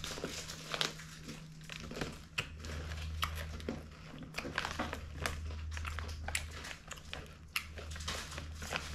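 A plastic snack wrapper crinkling as it is handled, with crunchy chewing of a Mars Pod, a crisp chocolate-filled pillow snack: many short crackles over a steady low hum.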